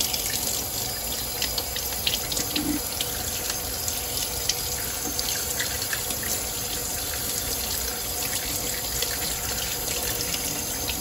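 Kitchen faucet running in a steady stream over a cleaned blue crab in the sink, the water splashing off the shell, with scattered light clicks as a knife works at the crab's body to wash out the remaining guts.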